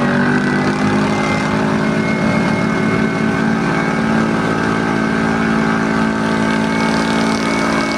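Motorcycle engine running at a steady pitch while riding along at an even speed, with wind and road noise on the microphone.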